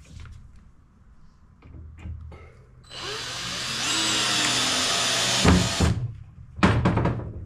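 Cordless drill driving a screw through a hardwood fence paling into a board beneath. The motor whines for about three seconds, its pitch sagging as the screw bites in. A few loud knocks follow near the end.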